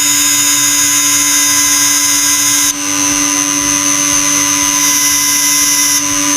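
Electric power tool running steadily with a high whine over a low hum. Its tone shifts slightly about two and a half seconds in and again near the end.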